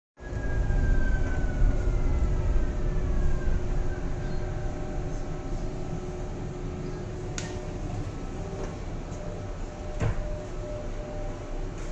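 Brno Tatra K2P tram running, heard from inside its passenger compartment: a steady low rumble, and a whine that falls in pitch over the first few seconds. Two sharp clicks come about seven and ten seconds in.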